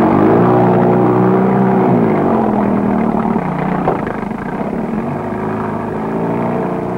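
A 25-horsepower outboard motor running. It holds a higher pitch for about two seconds, then drops to a lower, steady pitch.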